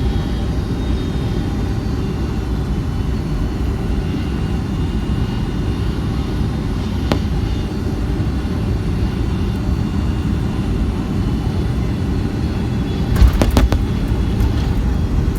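Boeing 757-200 heard from inside the passenger cabin: a steady, loud low rumble of engines and airflow. There is a sharp click about seven seconds in and a few jolting knocks about thirteen seconds in.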